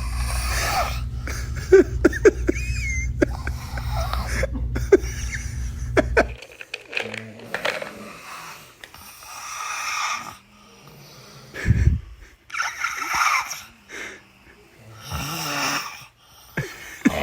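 A person snoring, with long rasping breaths that come and go every few seconds. A steady low hum runs under the first six seconds and cuts off suddenly.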